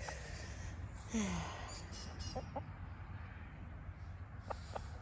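A chicken clucking a few times: a short falling call about a second in, then brief clucks, over a steady low background rumble.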